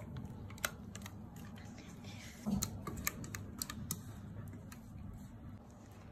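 Scattered light clicks and taps of a metal utensil against the pot and glass baking dish as thick custard cream is scooped and scraped out onto a sponge cake.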